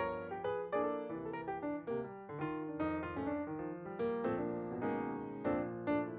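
Background piano music, a melody over chords.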